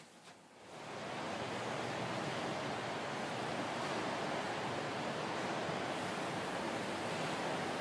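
Steady rushing of running water, coming in about a second in and holding evenly.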